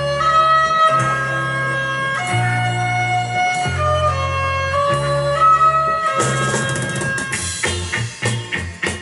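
Instrumental break in a Belarusian folk-rock song: a sustained melody line over long held bass notes. About six seconds in a cymbal-like crash comes, and the band falls into short, rhythmic strokes.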